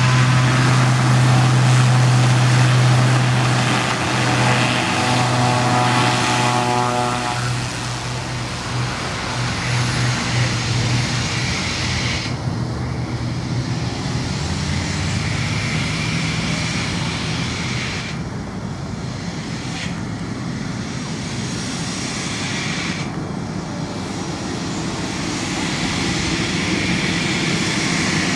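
Cessna 208B Grand Caravan EX's single PT6A turboprop engine and propeller during a takeoff run. For about the first seven seconds there is a strong steady low hum with higher tones above it. After that it becomes a broader, steadier engine-and-propeller noise that eases in the middle and grows louder again near the end as the aircraft climbs away.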